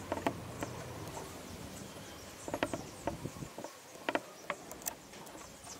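A small screw being turned by hand into a wooden dowel: a scatter of small irregular clicks and creaks, densest about halfway through. Faint high-pitched chirping goes on in the background.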